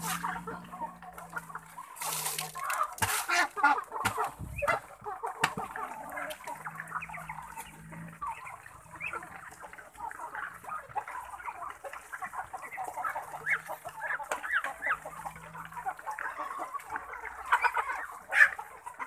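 A mixed flock of chickens and Muscovy ducks in a pen: continuous clucking and chirping from many birds at once, with a few loud knocks about two to three seconds in and another near the end.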